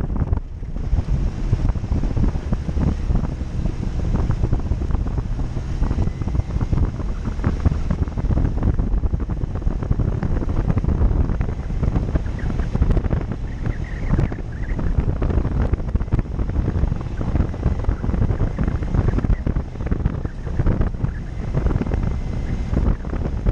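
Off-road vehicle driving, its low rumble overlaid with heavy wind buffeting on the microphone.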